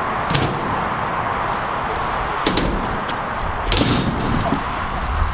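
BMX bikes on skatepark ramps: a few sharp clacks and knocks of wheels and frames hitting the ramps, about half a second, two and a half and nearly four seconds in, over a steady background hiss.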